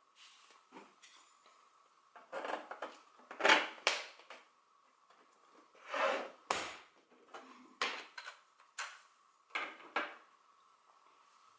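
3D-printed plastic front-panel parts being handled and pushed together: a series of irregular knocks and clatters, some in quick pairs, over a faint steady hum.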